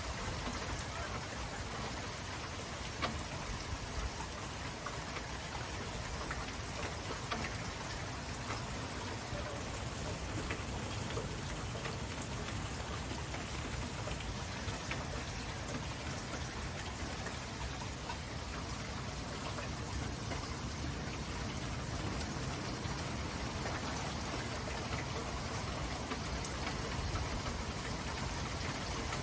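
Heavy rain falling steadily, with scattered louder drops ticking on a nearby surface and a low rumble underneath.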